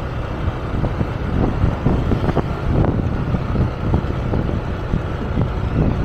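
Motor scooter riding along at steady speed, its small engine running under a rumble of wind on the microphone.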